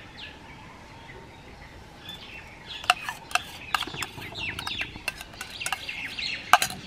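Small birds chirping in quick, short calls, mixed with sharp metal clinks of a spoon scraping thick spice paste from a steel bowl into an aluminium pot. The sounds pick up after the first couple of seconds, and the loudest clink comes near the end.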